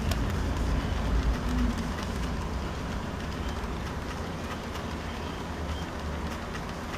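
Model trains running on the layout's track: a steady rumble of wheels and motors with a few faint clicks, loudest about a second in as passenger cars pass close, then easing slightly.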